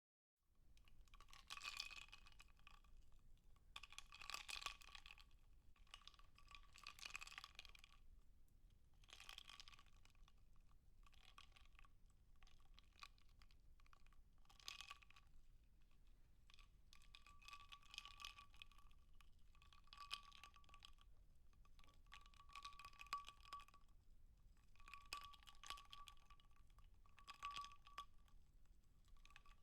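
Faint bursts of rapid clicking and crackling, each a second or two long, repeating every couple of seconds.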